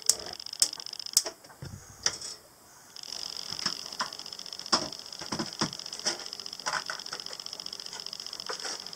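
Small taps and scrapes of a spoon scooping coffee grounds from a metal can into a filter, over a steady high hiss, with a few sharp clicks in the first second.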